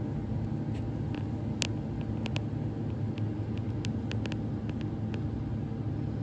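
Steady low mechanical hum with a faint steady tone above it, broken by a scatter of faint light ticks.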